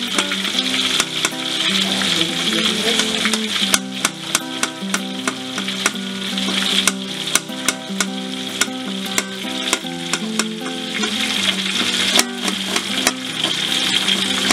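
Cubes of tempe, tofu and potato frying in hot oil: a steady sizzle with frequent sharp pops and clicks.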